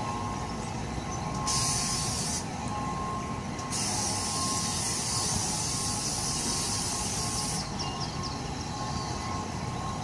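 Self-control plane amusement ride running, with a steady mechanical rumble. Two bursts of loud, high air hiss switch on and off sharply: a short one about a second and a half in, and a longer one of about four seconds starting near the four-second mark.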